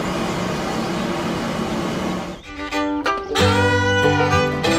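Small motor of a homemade miniature tractor whirring steadily as it pulls a roller. About halfway through the whirr stops and upbeat fiddle and guitar music begins.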